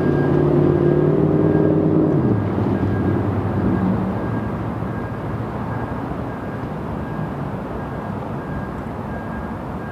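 GE ES44DC diesel locomotives rumbling as they approach at low speed, with a bell ringing at a steady pace. An engine drone drops in pitch about two seconds in, then the sound settles into an even rumble.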